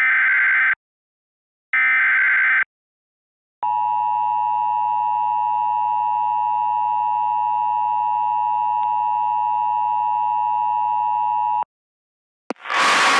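Emergency Alert System SAME header: two loud, buzzy one-second bursts of digital data, the last repeats of the header, followed by the two-tone EAS attention signal held steady for about eight seconds before it cuts off abruptly. After a second of silence and a click, a loud hiss starts near the end.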